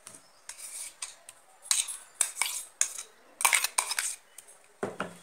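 A steel spoon scraping and clinking against a steel mixer-grinder jar as thick spice paste is scraped out, in short clusters of sharp metallic clicks, with a duller knock near the end.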